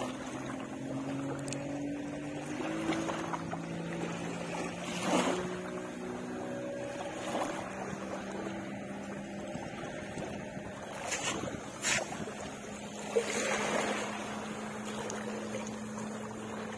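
A motor runs steadily underneath, a low hum whose pitch drifts slightly, over a faint background rush. A few short knocks stand out about five seconds in and again around eleven to thirteen seconds.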